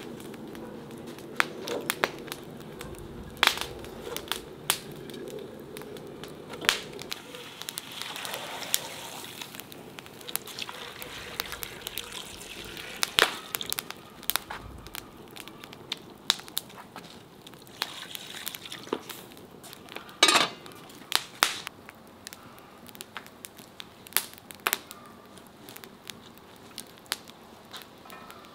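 Wood fire crackling, with sharp pops at irregular intervals; one of the loudest comes about two-thirds of the way in.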